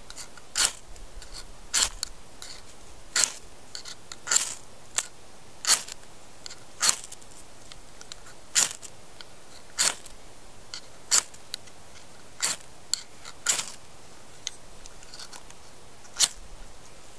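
Ferrocerium rod scraped hard with a steel striker, over and over: about a dozen short, sharp rasps, roughly one a second, throwing sparks onto damp fatwood pine shavings that have not yet caught.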